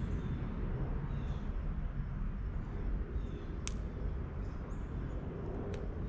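Outdoor ambience: a steady low rumble with faint, scattered bird chirps and two sharp clicks in the second half.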